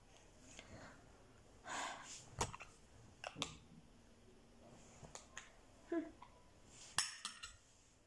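Small makeup items and their plastic cases being handled: a brief rustle about two seconds in, then a handful of sharp clicks and taps spread through the rest.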